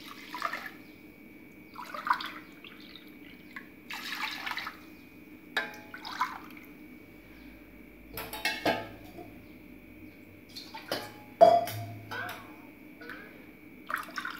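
Coconut milk poured from a plastic tumbler into an aluminium pressure cooker in several short splashing pours. A few sharp knocks of the tumbler against the pot come near the middle, over a faint steady hum.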